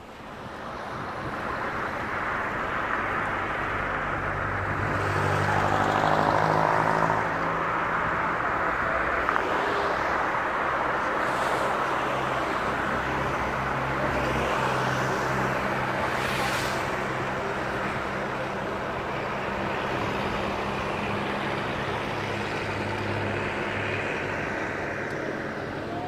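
Engine of a moving road vehicle running steadily, with road and wind noise. The sound builds up over the first couple of seconds, and there are brief hissing swells about eleven and sixteen seconds in.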